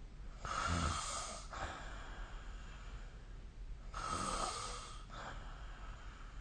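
A sleeping person snoring: two snores about three and a half seconds apart, each followed by a softer breath.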